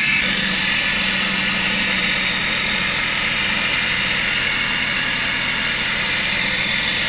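Suzuki K6A 660cc three-cylinder engine idling steadily, with the newly fitted serpentine belt turning the alternator, water pump and air-conditioning compressor pulleys, heard up close in the engine bay.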